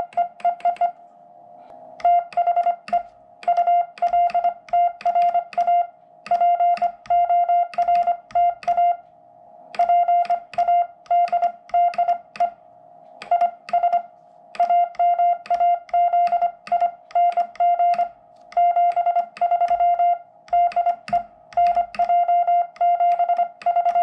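Morse code sent with an American Morse Ultra Porta Paddle, heard as the CW sidetone beep of a QRP Labs QCX-mini transceiver. It keys one steady pitch in quick runs of dots and dashes, in groups with short gaps between them.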